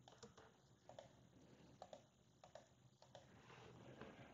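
Near silence, with a few faint, scattered clicks of computer keys being pressed.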